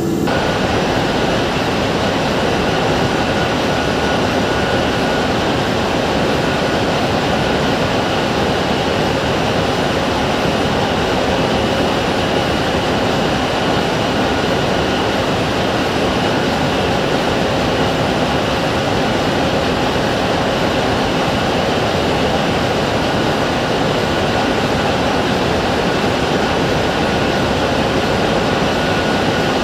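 Engine of a hydraulic machine running steadily: a loud, even drone with a few faint steady tones that does not change.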